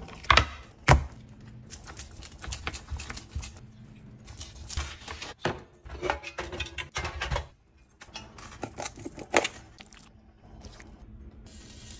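Kitchen handling sounds: a string of clinks, knocks and rattles of cookware, containers and utensils, with the sharpest knocks near the start and again about nine seconds in.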